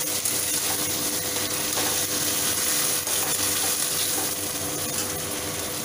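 Chopped tomatoes and capsicum sizzling in oil in an aluminium kadai, stirred with a steel spatula that scrapes and ticks against the pan. A faint steady hum runs underneath.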